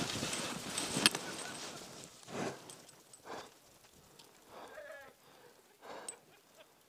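A skier's wipeout in deep powder: snow rushing and scraping over the camera and gear dies away over the first two seconds, with a sharp knock about a second in. A few faint, short voice sounds follow.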